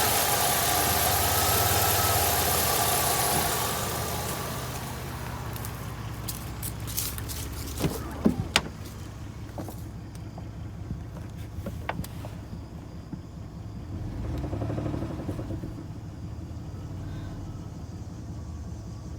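2003 Jeep Liberty's 3.7-litre V6 running, its revs falling back to idle about four seconds in and swelling briefly again later, with a few sharp clicks partway through. The owner takes the engine for one with rod knock.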